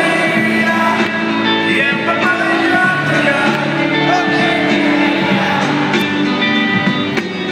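Rock band playing live in an arena, with a voice singing over held guitar and keyboard chords and drums, heard through a phone's microphone from the stands.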